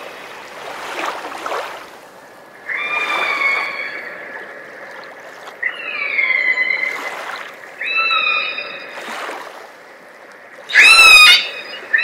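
Orca at the surface making a series of short, high, gliding whistle-like calls, about four of them a couple of seconds apart, the last one near the end the loudest. Water sloshes under the calls.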